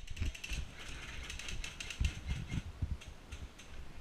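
Airsoft electric guns firing rapid bursts: fast runs of sharp mechanical clicks from the gearboxes, in several clusters, with a few dull low thumps.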